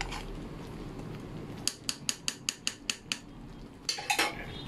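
A cooking spatula tapping against the rim of a frying pan: a quick run of about nine sharp clicks starting a second and a half in, then a couple more near the end.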